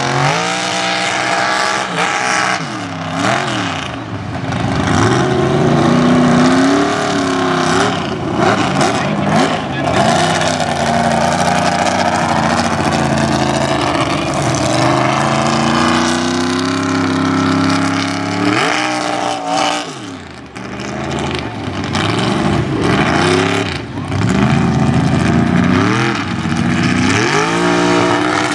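Mega mud truck's engine revving hard under full throttle, its pitch sweeping up and down again and again as the throttle is stabbed and lifted, with a few short dips in loudness when the throttle is backed off.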